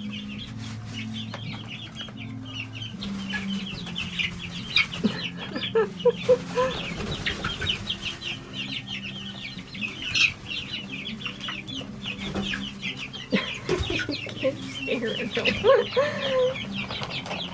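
A flock of young chickens peeping continuously in a dense run of short high calls, with a few lower trilling calls now and then, while they eat a treat of mealworms.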